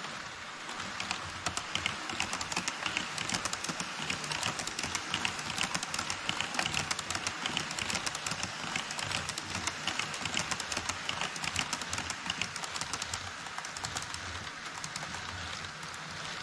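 HO-scale E5 series Shinkansen model running across a truss bridge on KATO Unitrack: a rapid, dense clatter of wheel clicks over the rail joints. It builds about a second in and eases off near the end.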